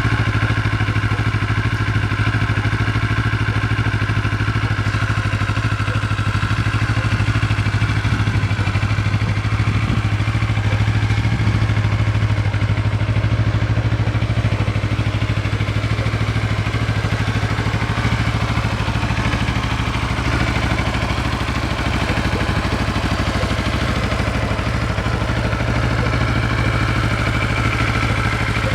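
2007 Kawasaki ER-6's 649 cc parallel-twin engine idling steadily through its stock exhaust.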